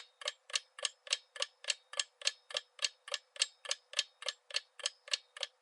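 Clock-style ticking sound effect of a quiz countdown timer: even, quick ticks, about three and a half a second, marking the time left to answer.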